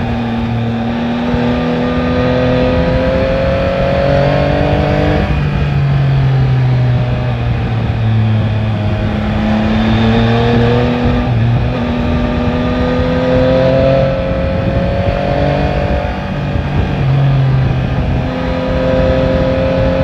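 Yamaha Tracer 9 GT's 890 cc three-cylinder engine pulling under load, its pitch climbing steadily and dropping at each upshift, three times, over a rush of wind.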